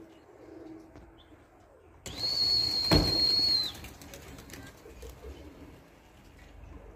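A single high, steady whistle lasting about a second and a half, with hiss underneath and a sharp knock partway through.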